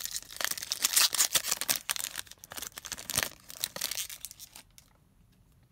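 Foil wrapper of a Panini Prizm baseball card pack being torn open and crinkled by hand, a dense crackle that dies away about four and a half seconds in.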